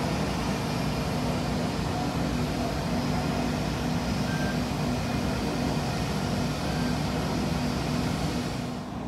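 Steady airport ramp noise: a continuous drone of jet aircraft and ground service vehicles, with a low hum under an even hiss. The higher hiss drops away abruptly near the end.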